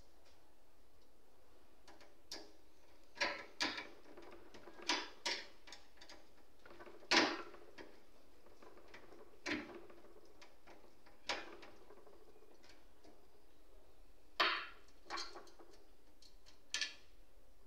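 About a dozen short clicks and knocks, some in quick pairs, from a screwdriver and parts against the steel chassis of an HP ProDesk 600 G1 desktop as a fan is refitted. The loudest knocks come about seven seconds in and again near fourteen seconds.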